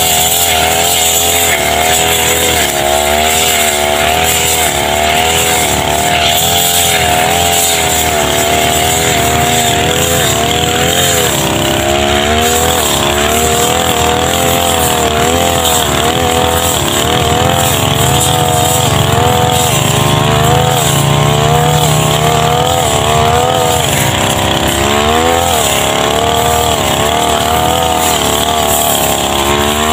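Backpack brush cutter engine running at high revs while its blade cuts tall grass. The pitch wavers continuously, dipping and recovering every few seconds as the blade bogs in the grass.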